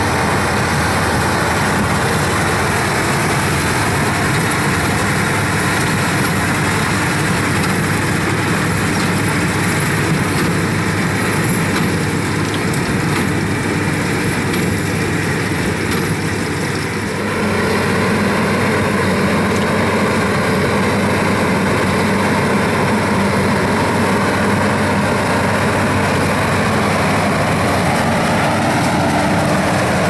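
Versatile 305 tractor's engine running steadily under load while pulling a Case IH 8575 big square baler that is working through wheat straw. The sound becomes louder and fuller a little past the middle.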